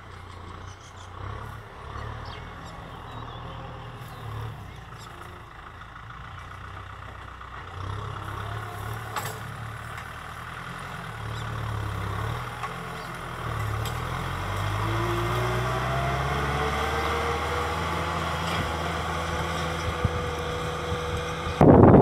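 Kubota M6040 SU tractor's diesel engine running under load while ploughing, its pitch shifting up and down, with a rising whine in the middle. Just before the end a sudden gust of wind hits the microphone.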